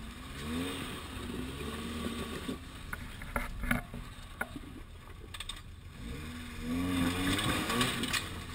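Lifted Toyota 4Runner's engine revving up in two bursts as it crawls over a rock ledge, the pitch climbing and falling with the throttle over a low rumble. Between the two bursts, a few sharp knocks of tyres and chassis on the rocks.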